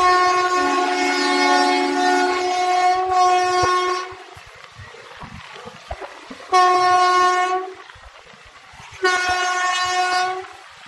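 Indian Railways WAP-4 electric locomotive's air horn sounding one long blast of about four seconds, then two shorter blasts of about a second each.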